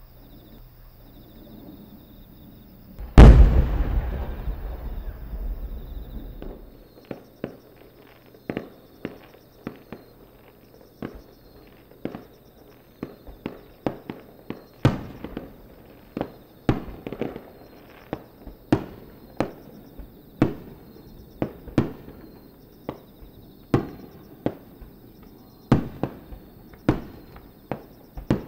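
Aerial fireworks shells bursting. One very loud boom comes about three seconds in, with a long rumbling echo. It is followed by a steady run of sharper, shorter bangs, about one or two a second, from smaller shells.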